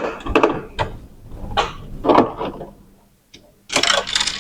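Screwdriver backing screws out of an Epson printer's plastic top cover, with scattered clicks and small scrapes of metal on plastic. A louder rasping scrape comes near the end.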